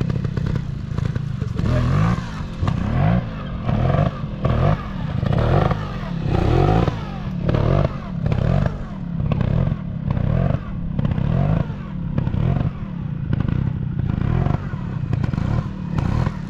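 125 cc trials motorcycle engine revved in short, repeated throttle blips, each rising and falling in pitch, about one a second, as the bike is worked through trials moves.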